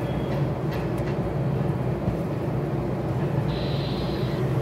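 Steady low background hum, with a few faint clicks about a second in and a short hiss near the end.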